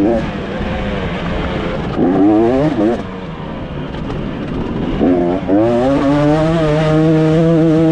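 2024 KTM 250 SX two-stroke engine revving hard under acceleration, its pitch climbing quickly about two seconds in and falling back about three seconds in, then climbing again and holding steady at high revs for the last couple of seconds.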